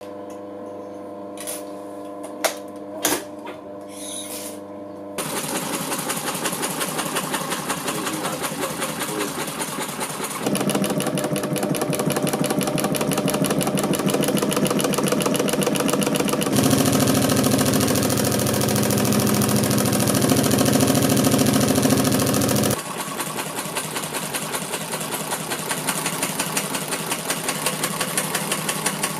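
Industrial sewing machine: at first its motor hums with a few sharp clicks, then about five seconds in the needle starts stitching in a fast, even rhythm. The stitching gets louder about ten seconds in and again about seventeen seconds in, then drops back about twenty-three seconds in.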